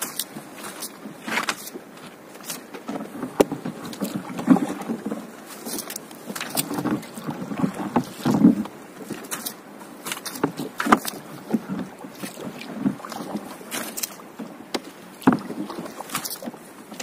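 A floating gillnet being set by hand from a small fibreglass boat: irregular splashes and knocks as the wet net and its floats go over the side and a wooden paddle bumps the hull.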